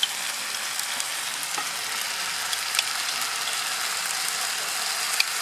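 Kaiserschmarrn and runny cherry jam sizzling in a hot pan with a steady hiss, and a few light clicks of a spoon against the jar and pan as the jam is spooned on.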